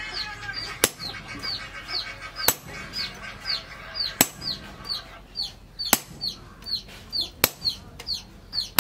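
Hammer blows on a hot chisel cutting into red-hot steel on the anvil, one sharp ringing strike about every second and a half to two seconds. Between the blows, chickens cluck and peep rapidly.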